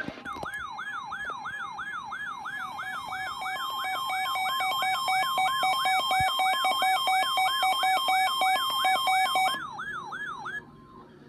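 Emergency alert tones ahead of a severe thunderstorm warning. A siren-like electronic tone sweeps up and down about three times a second. Partway through, a pulsing two-pitch beep and higher electronic tones join it, and all of them cut off about a second before the end.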